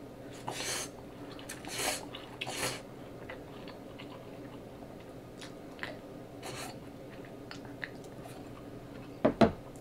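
Instant ramen noodles slurped off chopsticks, three slurps in the first three seconds, then chewing with small wet clicks. A short loud thump comes near the end.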